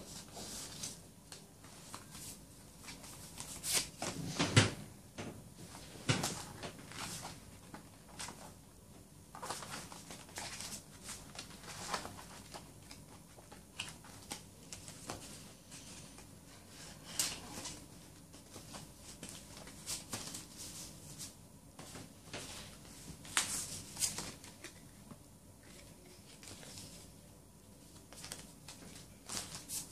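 Handling of a CD album's cardboard slipcase and paper inserts: sliding, rustling and light knocks as the pieces are pulled out and laid down. The loudest knocks come about four and a half and six seconds in.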